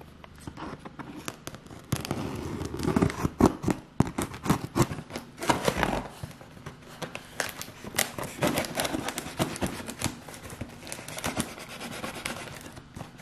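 Scissors cutting through packing tape on a cardboard shipping box, the tape crackling and tearing in a run of irregular clicks and rips that starts about two seconds in.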